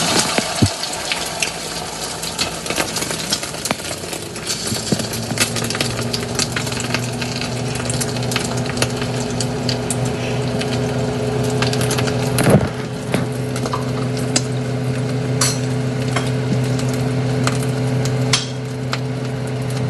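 Beaten eggs sizzling and crackling in hot oil in a frying pan as an omelette starts to cook. A steady low hum comes in about five seconds in, and a single sharp knock sounds about twelve seconds in.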